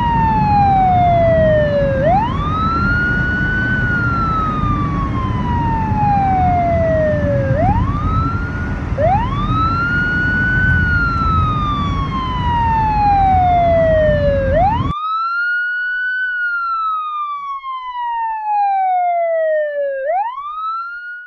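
Siren in a slow wail, its pitch climbing quickly and then falling slowly, about once every five seconds, over the steady road rumble of a car driving on a highway. The road rumble cuts off suddenly about fifteen seconds in and the siren wail carries on alone.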